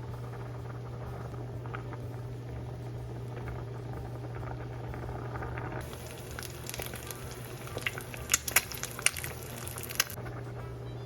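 A pot of stew bubbling on the stove over a steady low hum, with a few sharp clicks and taps between about six and ten seconds in.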